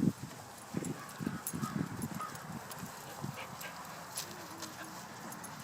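Puppies making small grunts and faint squeaks, with scattered light clicks and knocks.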